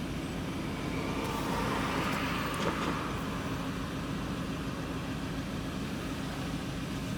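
Van engine and road noise heard from inside the cab while driving: a steady drone, with a rush of noise that swells and fades during the first few seconds and a faint click about three seconds in.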